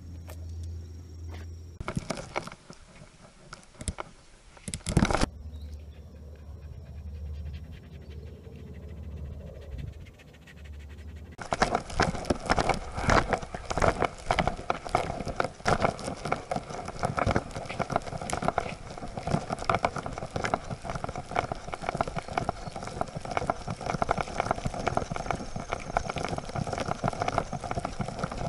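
Clattering and scraping from a camera strapped to a Siberian husky's harness as the dog walks, a dense run of small knocks that starts about a third of the way in. Before that it is quieter, with a single sharp knock.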